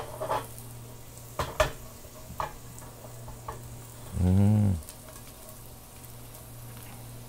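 Pumpkin and sunflower seeds sizzling in oil in a frying pan as they are stirred, with several short scrapes and taps on the pan. A brief low voice sound about four seconds in is the loudest thing.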